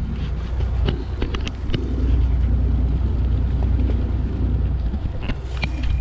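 Fishing boat's engine running with a steady low rumble, wind buffeting the microphone, and a few light clicks and knocks on deck.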